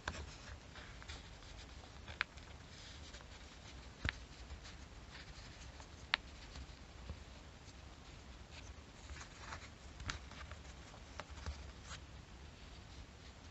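Small thin plywood kit pieces being handled and slotted together by hand: faint rubbing and scraping of wood on wood, with a handful of sharp clicks as parts knock or snap into place.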